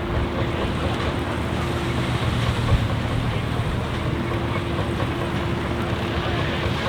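Deutz F3L514 air-cooled three-cylinder diesel tractor and Claas Super pull-type combine running together while threshing wheat: a steady, dense machine noise with a constant whine that drops away for a couple of seconds midway.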